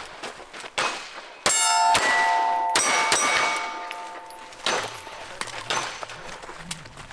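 A string of pistol shots at steel targets, with struck steel plates clanging and ringing on. The loudest and longest ringing comes about a second and a half in, and again at about three seconds.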